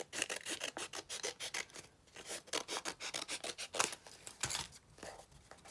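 Scissors cutting through folded paper in a quick run of short snips, with brief pauses about two seconds in and again past four seconds.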